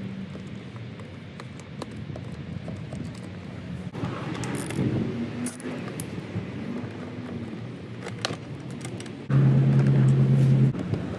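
Metal hand tools clinking and rattling, a socket on an extension bar, while the plastic side cover is unbolted and handled, over a steady low hum. Near the end a loud, steady low drone cuts in suddenly and stops just as suddenly about a second and a half later.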